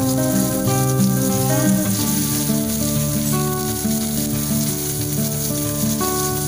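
Hot oil sizzling steadily in a frying pan as bottle-gourd-leaf parcels of prawn fry in it, over background music with sustained notes.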